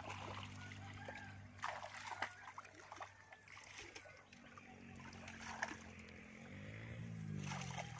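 Water splashing and sloshing as a fishing net is worked through a shallow pond, with a few sharp splashes. A small engine runs steadily underneath, fades in the middle and speeds up near the end.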